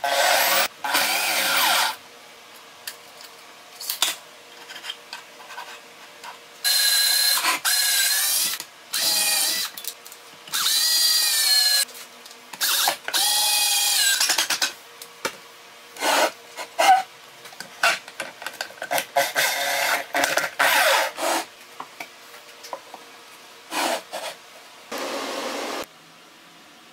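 Cordless drill-driver driving screws into plywood in a series of short trigger runs, each up to about two seconds, the motor's pitch gliding up and down as the trigger is squeezed and released. Short clicks and knocks fall between the runs, and a rougher, noisier run comes near the end.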